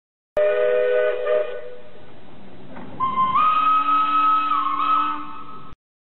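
Steam locomotive whistle blowing twice: a lower chord-like blast for about a second, a steady hiss, then a higher whistle that steps up in pitch and dips once before cutting off abruptly.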